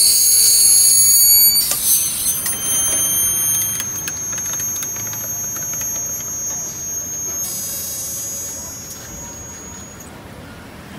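A steady high-pitched whine that changes pitch a few times, with light clinks of a metal spoon stirring coffee in a glass jug.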